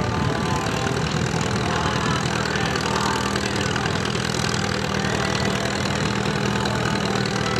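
Antique Farmall tractor's engine running steadily at an even, low pace as the tractor creeps forward, hitched to the pulling sled.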